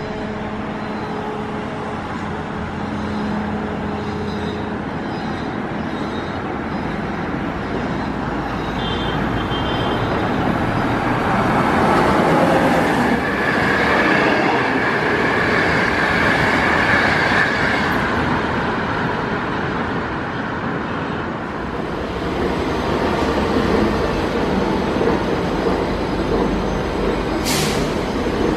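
A passenger train hauled by an SS8 electric locomotive passes on curved track, its coaches rumbling past louder and louder to a peak in the middle. A high steady whine sounds over the rumble while the train is loudest, then the rumble carries on more evenly.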